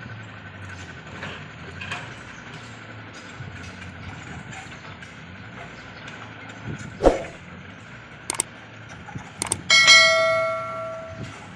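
A low engine hum runs under a few sharp knocks, then a loud metallic clang about ten seconds in that rings with several clear tones and fades over a second or so, like a piece of steel being struck.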